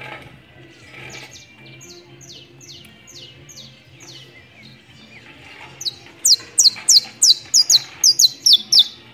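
Saffron finch (canario criollo) singing: a run of short, downward-sliding high chirps, about three a second, that turns into a much louder, faster series about six seconds in.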